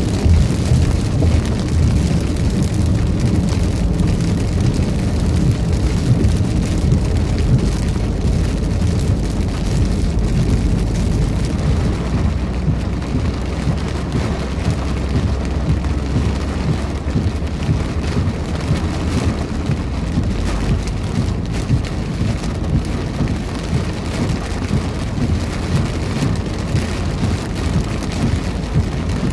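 Heavy thunderstorm downpour, rain pouring steadily, with a continuous low rumble underneath.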